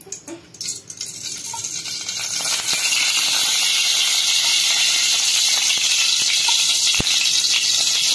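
Aluminium kadai heating on a gas stove: a steady hiss that builds over the first three seconds, with a faint knock about seven seconds in.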